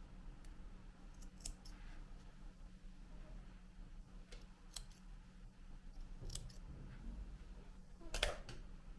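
Scissors snipping the yarn ends off a freshly tied invisible knot: a few short, sharp snips spread out, the loudest near the end.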